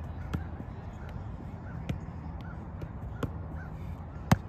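A soccer ball being juggled: dull thumps of foot touches on the ball, four clear ones about a second or so apart, the last the loudest, with birds calling in the background.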